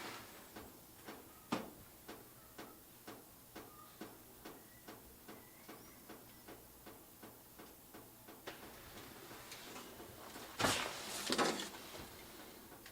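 Steady mechanical ticking, about two ticks a second, with one sharper click about a second and a half in and a brief louder clatter near the end.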